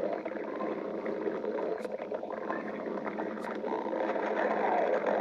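A person's stomach growling: a continuous gurgling rumble that grows slightly louder near the end, with a couple of faint clicks.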